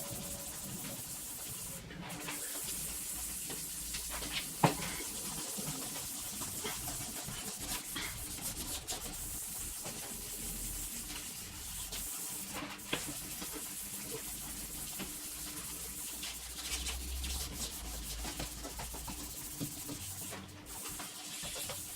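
Sandpaper rubbing on a plastic headlight lens to cut back its yellowed, cloudy surface, a rough scratching with many small clicks. One sharp knock sounds a little under five seconds in.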